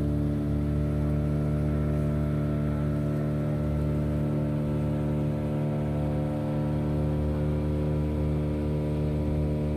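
Motorboat engine running steadily at an even speed.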